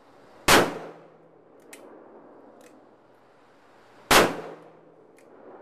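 Two shots from a large Smith & Wesson magnum revolver, about three and a half seconds apart, each followed by a short echo. A few faint clicks come between the shots.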